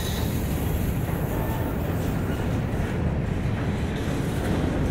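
Covered hopper cars of a freight train rolling past on steel rails: a steady low rumble of wheels on track.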